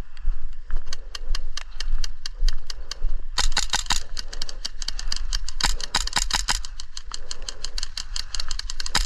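Airsoft guns firing, a rapid run of sharp cracks. At first they come about five a second, then from about three seconds in they grow denser and louder.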